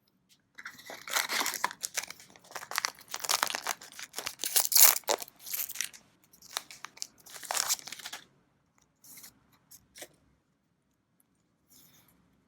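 A trading-card booster pack wrapper being torn open and crinkled in the hands, a busy run of tearing and crumpling for about eight seconds, then a few faint handling rustles.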